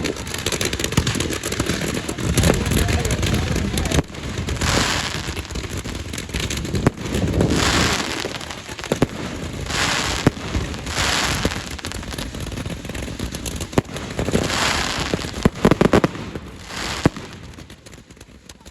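Fireworks going off: about six short rushing bursts a couple of seconds apart, with sharp cracks and crackling between them. A low rumble runs under the first few seconds.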